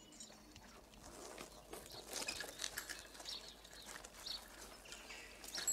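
Small birds chirping, many short overlapping calls over a faint open-air hush.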